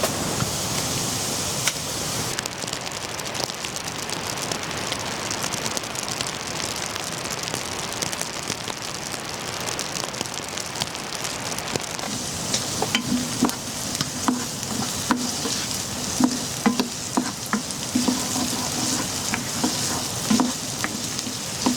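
Food sizzling in a frying pan, a steady hiss, with a utensil stirring and clinking against the pan in frequent short strokes from about halfway through.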